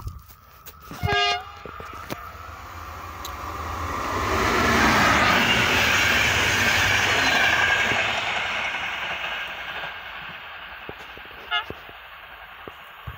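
HŽ series 1142 electric locomotive hauling passenger coaches: a short horn toot about a second in, then the train passes close by, its wheel-and-rail rush swelling to loudest in the middle and fading away.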